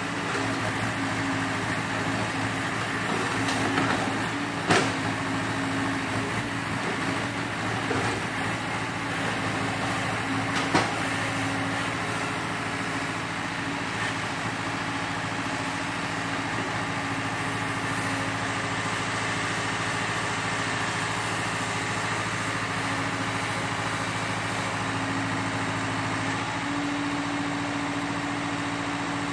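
Hyundai compact excavator's diesel engine running steadily at work, with a couple of short sharp knocks about five and eleven seconds in. The engine note shifts near the end.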